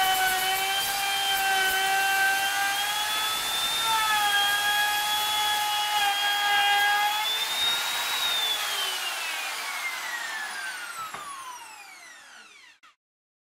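Electric plunge router running at full speed with a high motor whine, cutting wood: the pitch sags as the bit bites in and recovers between passes. About eight seconds in it is switched off and the whine falls steadily in pitch as the motor spins down to a stop.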